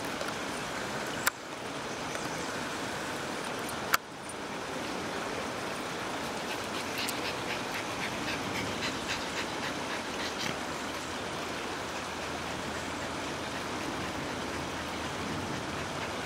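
River water running steadily over rocks, a continuous rushing. Two sharp clicks cut through it about a second in and again about four seconds in. A run of faint high-pitched squeaks comes in the middle.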